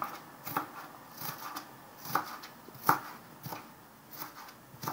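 Kitchen knife chopping onion finely on a plastic cutting board: irregular taps of the blade against the board, about one to two a second.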